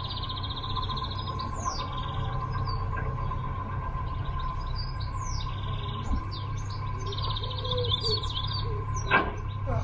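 Songbirds singing, with several rapid high trills and chirps, over the steady low hum of a narrowboat's diesel engine running at slow cruising revs. There is one sharp click near the end.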